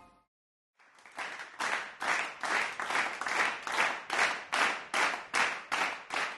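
Audience clapping in unison: a steady beat of about two and a half claps a second, starting about a second in after a moment of silence.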